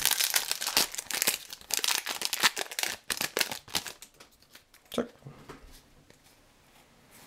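Foil booster-pack wrapper being torn open and crinkled by hand, a rapid crackling for about four seconds. A single sharp click follows about five seconds in.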